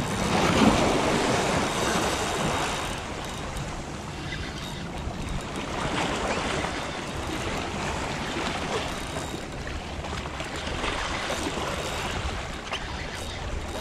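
Sea surf washing and splashing, swelling and fading every few seconds, with wind on the microphone.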